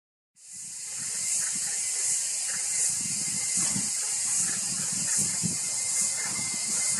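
A high, dense hiss that swells in even pulses about every three-quarters of a second, typical of an insect chorus in the trees. It starts suddenly about a third of a second in.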